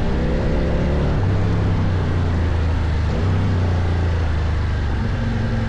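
CFMOTO Ibex 800 motorcycle's parallel-twin engine running steadily under way, with small changes in pitch about a second in and about three seconds in.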